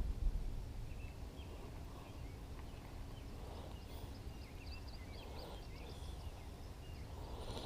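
Birds chirping faintly and repeatedly over a low, steady wind rumble.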